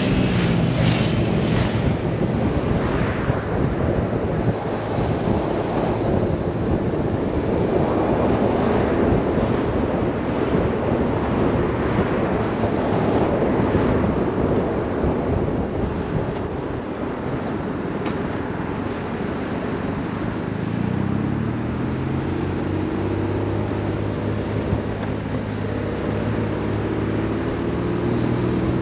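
BMW R 1150 RS boxer-twin engine running under way, under heavy wind rush on the microphone. About three-quarters of the way in the wind eases and the engine note comes through clearly, its pitch shifting slightly.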